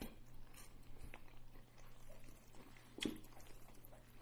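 Faint eating sounds of people chewing fried chicken with their mouths close to the microphone: scattered small clicks and smacks, the clearest about three seconds in, over a low steady hum.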